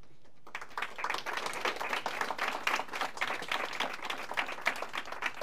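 Audience applauding, many hands clapping together, starting about half a second in.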